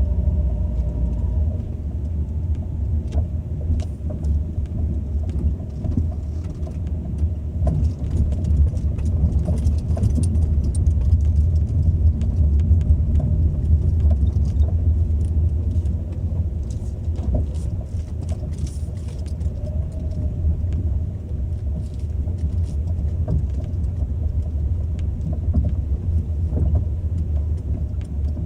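Second-generation Ford Focus on the move, with a steady low road rumble and irregular sharp knocks and rattles throughout: the knock the owner puts down to a worn steering rack.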